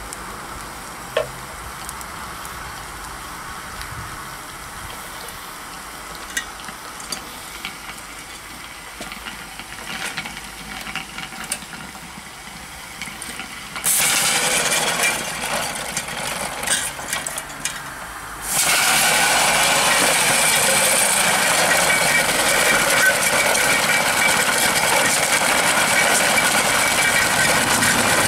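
Live-steam 2-inch scale Allchin traction engine: faint hiss and small clicks as its controls are worked, then about halfway through a sudden loud hiss of steam blowing out. It briefly drops, then settles into a louder steady hiss with a thin whistle in it.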